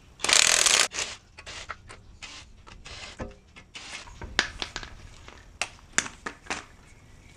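A short burst of rattling, hissing noise near the start, then scattered metal clicks, taps and light scrapes of hand tools and brake parts being handled.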